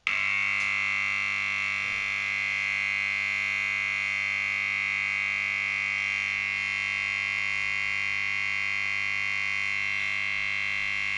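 Large mains power transformer switched on at the start and running with a loud, unpleasant steady hum overlaid by a harsh high-pitched buzz. The buzz comes from its core laminations, which have worked loose from one another.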